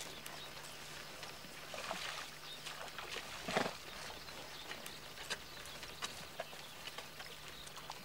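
Przewalski's horses at a waterhole: faint, scattered hoof steps and small clicks on dry mud, with one louder short sound about three and a half seconds in.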